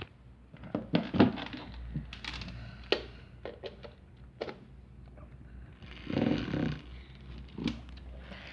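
Handling noises: a run of sharp clicks and knocks, with a short rushing noise about six seconds in, over a faint steady low hum.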